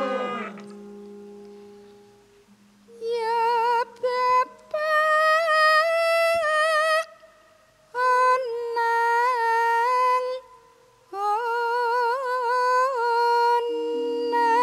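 A Javanese gamelan gadhon ensemble stops and a low gong tone fades out. Then a woman sings a bawa, the solo vocal introduction, unaccompanied in several drawn-out phrases with a wavering, ornamented pitch and short breaks between them. The instruments come back in near the end.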